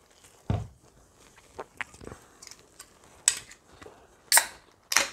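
An aluminium drink can being handled and opened: a low thump near the start, a few small clicks, then sharp cracks with short hisses in the second half as the tab is pulled and the carbonation escapes.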